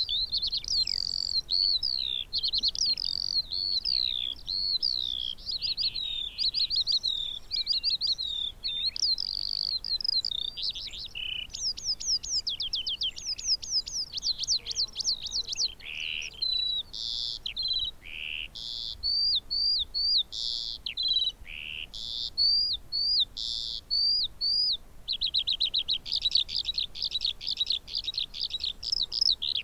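Eurasian skylark singing its long, unbroken song: a high-pitched, rapid stream of varied warbles, chirps and trills, settling into a fast, even trill near the end.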